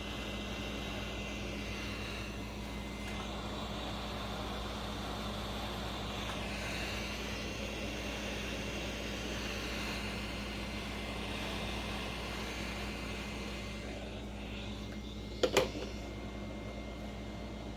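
Steady fan-like hum and hiss, with a faint high whine in the first few seconds. About fifteen seconds in, a sharp double click stands out as the loudest sound.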